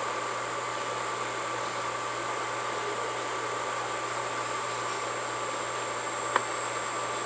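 Steady hiss with a low hum and faint steady whines; a single short click about six seconds in.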